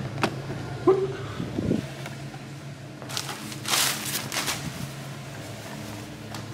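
A few light knocks and clatters in the first couple of seconds, then rustling handling noises, over a steady low hum.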